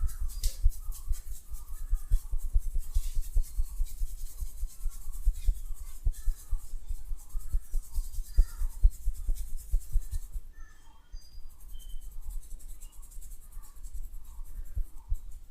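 Hands massaging a person's head and face, with quick, irregular rubbing and soft patting strokes on skin and hair. The strokes thin out about ten seconds in.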